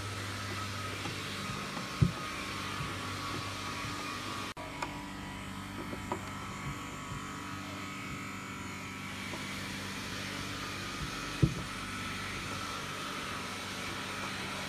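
A steady machine hum with no break, and two short knocks, one about two seconds in and one later on.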